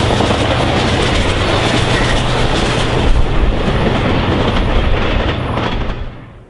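Amtrak passenger train passing at speed, loud, with a deep rumble and wheels clacking over rail joints. The sound cuts off abruptly about six seconds in.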